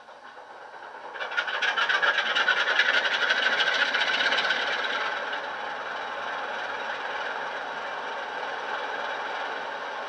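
Class 47 diesel sound file of the Sulzer twelve-cylinder engine, played through a model locomotive's small speakers, starting up. About a second in it bursts into loud, rapidly pulsing running, then eases down around five seconds in to a steady idle.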